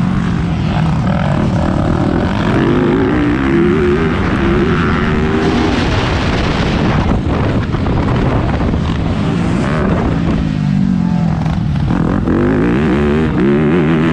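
Four-stroke motocross bike engine revving hard under throttle as the bike is ridden around the track, its pitch rising and falling through the gears. It drops off about ten seconds in and climbs again near the end.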